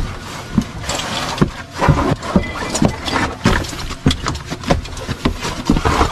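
Footsteps crunching and scraping over loose rock rubble, with stones clattering underfoot in an irregular run of steps.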